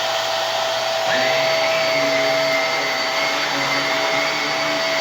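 Hoover PowerDrive Pet upright vacuum cleaner running with its brush roll engaged: a steady motor whine, joined about a second in by extra lower tones and a slightly higher whine.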